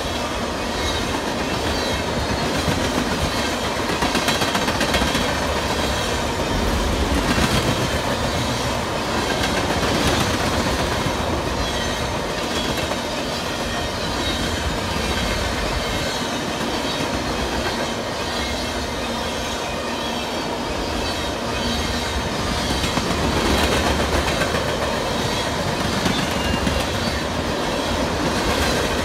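A long string of railroad tank cars rolling past close by: a steady rumble of steel wheels on rail, with repeated clicking and knocking as the wheels pass over the rail joints.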